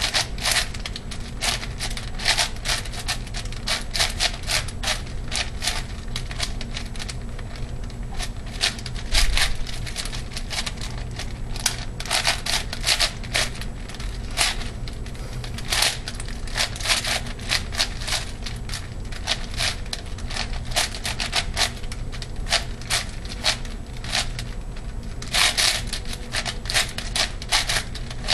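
ShengShou 8x8x8 puzzle cube being turned fast during a speedsolve: rapid, irregular plastic clicking and clacking of layer turns, coming in quick flurries separated by brief pauses.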